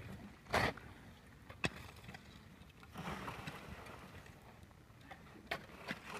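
Pickaxes and shovels digging into stony soil: several sharp knocks of metal striking the ground, the loudest just over half a second in, and a stretch of scraping through earth about halfway through.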